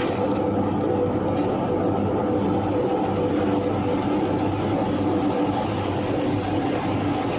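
Steady low roar and hum of a commercial gas wok burner running on a high flame, without sharp clanks or sizzle bursts.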